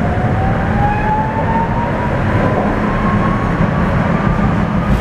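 Tatra T3 tram running, heard from inside the car: steady rumble of wheels on rails under a motor and gear whine that rises slowly in pitch as the tram picks up speed.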